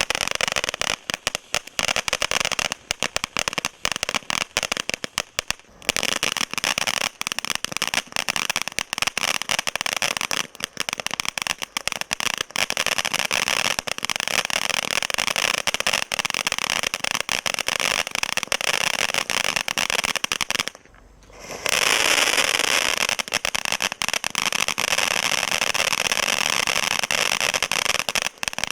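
Garden fireworks crackling and hissing densely and continuously, with rapid tiny pops. The crackling stops for about a second, around 21 seconds in, then starts again.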